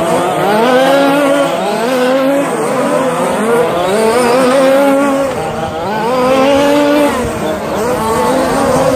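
Radio-controlled short course trucks racing, several motors at once rising and falling in pitch as they accelerate and slow for corners, with tyre noise underneath.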